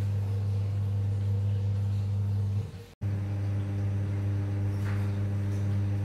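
A steady low hum with overtones, which breaks off for a moment about three seconds in and then resumes.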